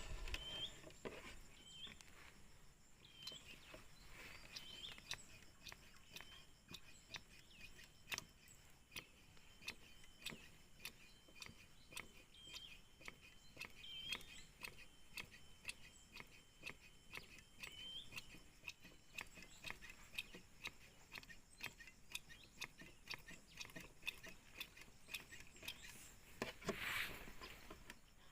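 Faint, irregular clicking and ticking from a Mitsubishi PS100/120 diesel injection pump being worked by hand on the bench, a couple of clicks a second. Thin high chirping runs under it through the middle stretch.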